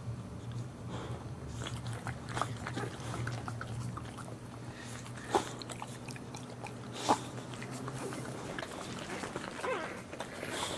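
A dog whelping: small scattered mouth and body sounds, with two sharp knocks a little past five and seven seconds in and faint short squeaks near the end, over a steady low hum.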